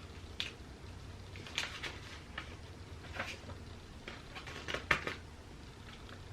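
Light clicks, taps and rustles of small makeup items and their packaging being handled, a few scattered knocks, the loudest about five seconds in.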